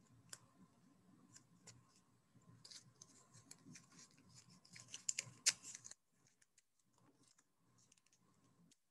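Faint crackling and clicking of clear tape being pulled from a small roll and handled, building to a few sharper clicks about five seconds in, then only faint ticks.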